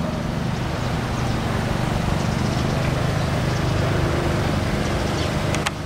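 An engine running steadily with a low, even hum, swelling a little louder midway.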